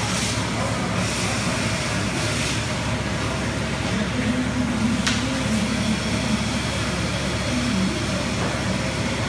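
Car-wash equipment running steadily: a continuous mechanical hum with a constant hiss over it, and a single short tick about five seconds in.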